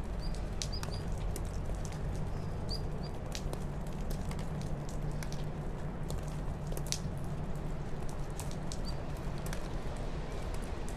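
Granular bonsai soil mix of perlite, calcined clay and potting soil crackling and ticking as a plastic scoop works it into a shallow pot, over a steady low hum. A few faint high chirps come in the first few seconds.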